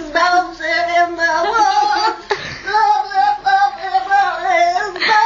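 A woman singing loudly with held, wavering notes, breaking off briefly about two seconds in.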